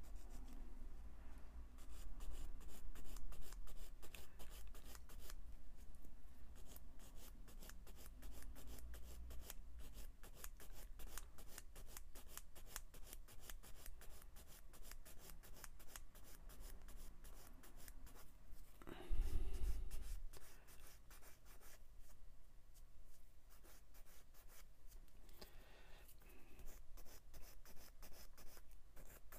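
A sanding stick scraping over a small plastic model-kit part in quick, scratchy strokes, cleaning up the part. About 19 seconds in there is one louder bump and rustle of handling.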